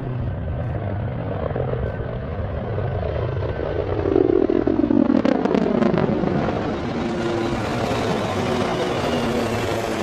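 HAL Dhruv helicopters flying past: a steady low rotor beat with engine noise, and a pitch that falls about four to six seconds in as one passes close.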